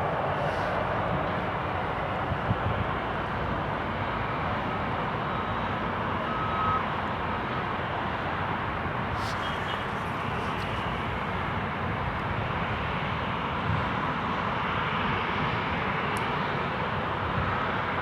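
A jet airliner's engines on approach or landing: a steady rushing noise that holds level throughout.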